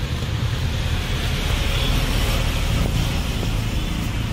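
Steady, loud, low rumbling background noise with a hiss over it, unbroken and without distinct knocks.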